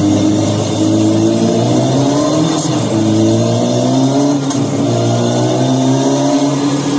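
Emula One electric motorcycle playing its emulated 1999 600 cc four-stroke four-cylinder engine sound, revving up through its virtual gearbox: the pitch climbs and drops back at each shift, about three times.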